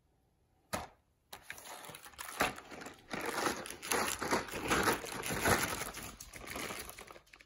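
Cardboard dog-treat advent calendar being picked up and handled: one sharp click under a second in, then crinkling and rustling of the cardboard for several seconds.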